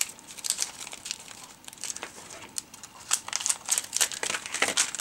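Crinkling of a translucent glue-dot sheet being handled in the fingers as a glue dot is taken off it: irregular short crackles, thickest in the second half.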